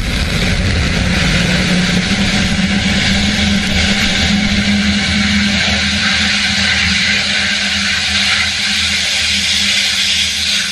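Steady loud rushing noise with a low hum from the deck of a rocket-landing drone ship as a Falcon 9 first stage comes down and settles. It keeps up without a break.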